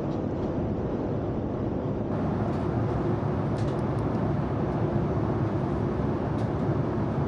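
Steady low cabin noise of a Boeing 787-10 airliner in flight: engine and airflow noise heard from inside the cabin, with a couple of faint light ticks.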